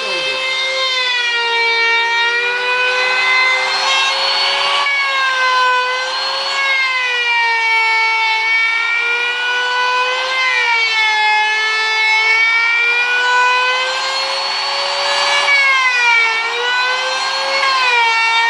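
Bosch palm router running at high speed and cutting into a wooden piano leg. Its whine dips and recovers again and again as the bit takes load, over a steady lower hum.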